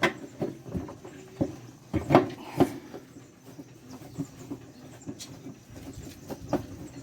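Irregular knocks and clatter of hand tools on the metal parts of a top-loading washing machine's shaft and bearing assembly as it is worked loose, the loudest few strikes about two seconds in.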